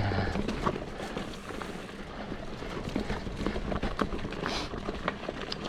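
Mountain bike rolling downhill over a rough, rocky dirt trail: tyre noise on dirt and gravel with a steady scatter of small clicks and rattles from the bike over the bumps.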